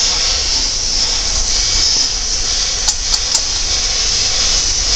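Pneumatic needle gun (needle scaler) running steadily against metal, a continuous hissing rattle of air and hammering needles. Three short sharp clicks come about three seconds in.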